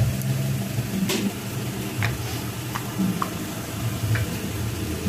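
Gift-wrapped cardboard boxes being handled and stacked in the back of a van: a few scattered light knocks and rustles, over a steady low hum.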